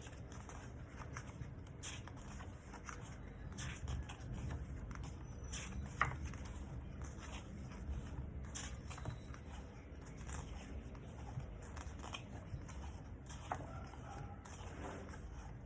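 Paper pages of an album photo book being turned and handled: soft, scattered rustles and light clicks over a low steady room hum.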